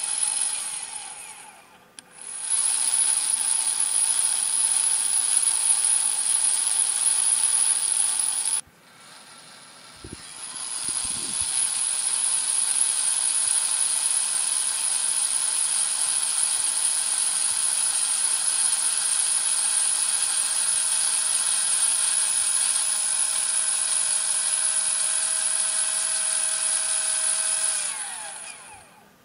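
Astro-Physics 3600 telescope mount's drive motor and gear train slewing on its newly replaced gears: a steady machine whine made of several tones. It runs in three spells, a short one, one of about six seconds and a long one, with breaks about two seconds in and from about nine to eleven seconds. The last spell winds down with a falling pitch near the end.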